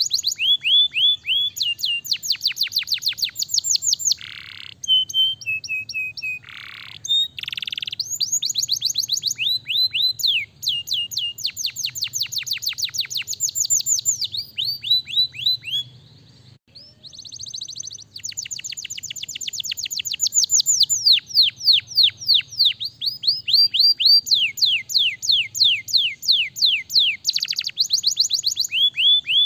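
Domestic canary singing: long fast trills of rapidly repeated, high falling notes, broken by a few harsher notes early on and a brief pause about halfway through.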